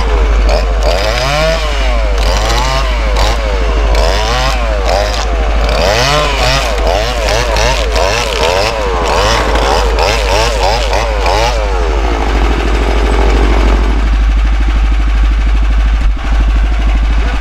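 Handheld chainsaw cutting into a log, revving up and easing off about once a second as the bar bites. After about twelve seconds it settles to a lower, steadier run.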